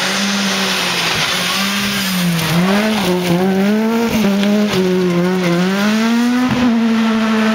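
Ford Fiesta rally car sliding through a gravel hairpin. The engine note dips and rises several times as the throttle is lifted and reapplied, over the hiss and scrabble of spraying gravel, then settles to a steady note as the car drives away.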